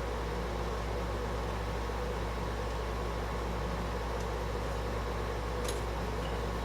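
Air conditioner running with a steady hum and hiss, with a couple of faint clicks near the end.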